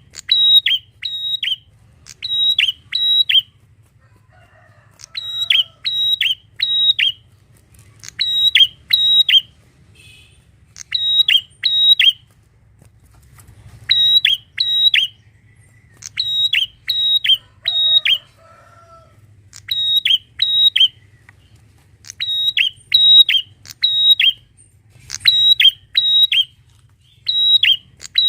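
Prenjak (prinia) singing: loud, sharp, high notes in quick runs of two to four, repeated after short pauses, over a faint low hum.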